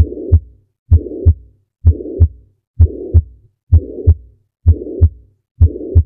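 Heart sounds of tricuspid regurgitation heard through a stethoscope: a regular heartbeat of a little over one beat a second, each beat a pair of low thumps (S1 and S2) with a murmur filling the gap between them, about seven beats in all.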